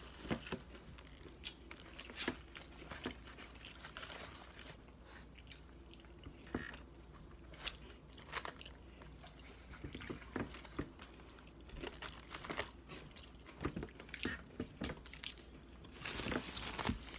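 Chewing and crunching of fried, battered onion rings close to the microphone: irregular crisp crunches and wet mouth sounds, busier near the end.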